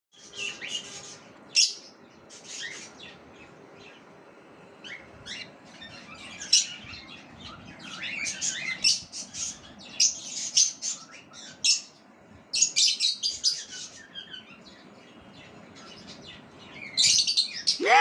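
Pet parrots, a yellow Indian ringneck parakeet with a young parrot chick, giving short, high, shrill chirps and screeches in bursts with brief pauses. The calls fit the angry ringneck the title speaks of. A louder run of calls comes near the end, ending in a loud squawk.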